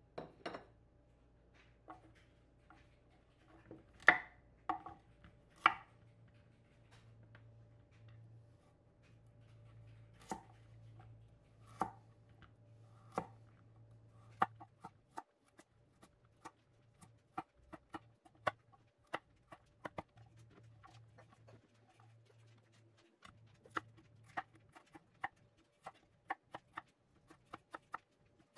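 Chef's knife chopping carrots, then potatoes, on a wooden cutting board: sharp knocks of the blade on the board, scattered and uneven at first, then a steadier run of about two chops a second in the second half.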